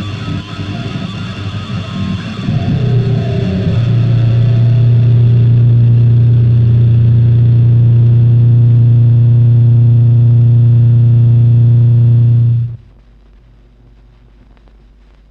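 Harsh noise music playing from a 7-inch vinyl record on a turntable: a dense, noisy blast settles about three seconds in into a loud, steady low drone, which cuts off abruptly with about three seconds left. After that only faint crackle and clicks from the stylus in the run-out groove remain.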